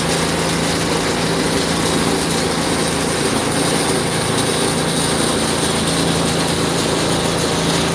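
Water tanker truck's engine running steadily with an even hum, under a constant hiss from water spraying out of its hose.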